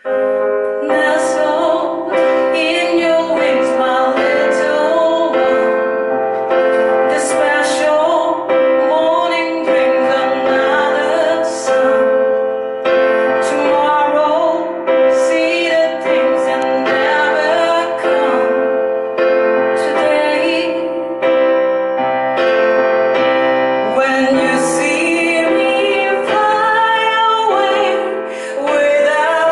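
Female voice singing a song over keyboard accompaniment, with a steady held note underneath. The music starts suddenly at the outset.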